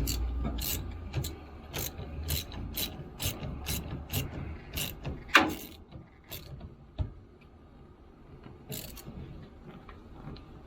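Ratchet wrench clicking in short bursts, about two a second, as a nut is run down tight on a battery cable bolt; the clicking thins to a few scattered clicks after about six seconds.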